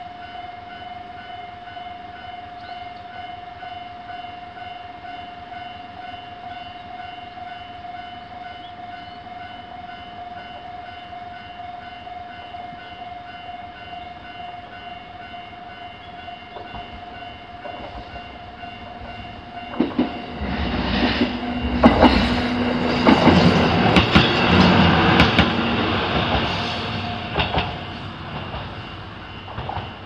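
Japanese level-crossing warning bell ringing steadily. About twenty seconds in, a Kururi Line diesel railcar passes over the crossing: loud running noise with the wheels clacking over the rail joints, fading after several seconds.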